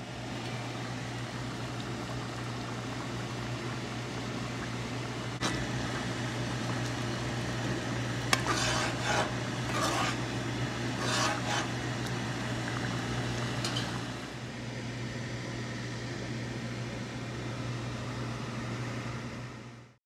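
Pot of stew chicken with red beans simmering and bubbling on a gas stove, under a steady low hum. A metal spoon knocks once about five seconds in, then scrapes and stirs against the pot in bursts from about eight to twelve seconds in.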